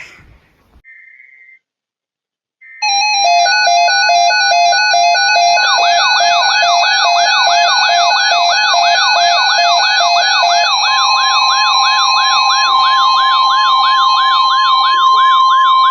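Several weather-alert radios and EAS monitors going off at once, signalling a Tornado Watch. A brief data burst is followed by overlapping alert tones: steady tones, on-off beeping and a fast rising-and-falling siren-like warble. About eleven seconds in, a steady single warning tone joins them, and all the tones cut off together just before the end.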